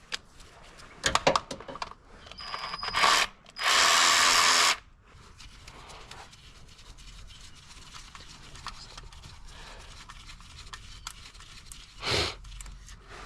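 A power tool runs in one loud burst of about a second, with a few clicks and knocks of tools being handled around it and a shorter burst near the end.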